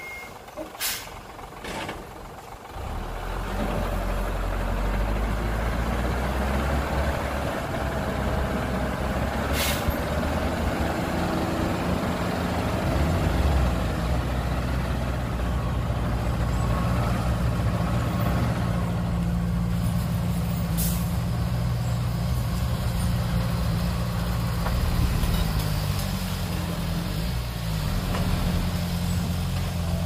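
Hyundai dump truck's diesel engine starts running loud and steady about three seconds in, driving the hydraulic hoist as the tipper bed rises to dump its load of soil. A few sharp clicks come before it and at scattered points during it.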